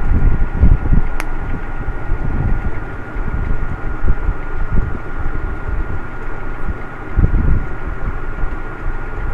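Steady whir of a small electric fan or blower, low and uneven, with a thin steady high tone running under it and a single sharp click about a second in.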